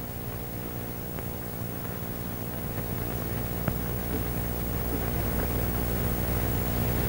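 Steady low hum with hiss, growing slightly louder toward the end, with a couple of faint clicks: the background noise of an old film soundtrack.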